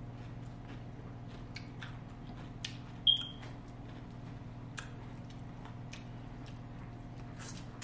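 Close-up mouth sounds of eating: chewing, small wet clicks and lip smacks as corn on the cob and shrimp are bitten and chewed, over a steady low hum. A short, sharp high squeak stands out about three seconds in.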